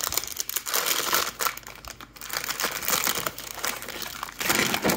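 Clear plastic wrapping crinkling irregularly as a plastic-wrapped part is handled and lifted out of its box. There is a short lull about two seconds in, and it gets louder near the end.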